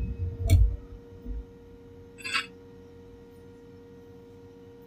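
Background music dies away in the first second, leaving faint steady held tones, with one short rustling burst about two seconds in.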